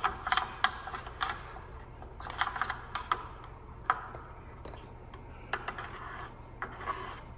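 Small paintbrush being rinsed in a plastic cup of water: irregular light clicks, taps and short scrapes of the brush against the cup.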